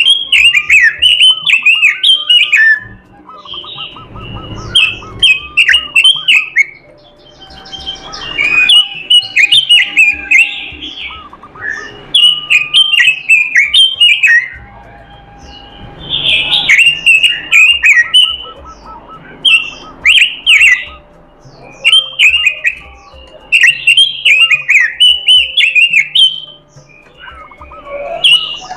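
Pekin robin (red-billed leiothrix) singing loud, rapid phrases of quick falling notes. The phrases come in short bursts of one to two seconds, with brief pauses between them.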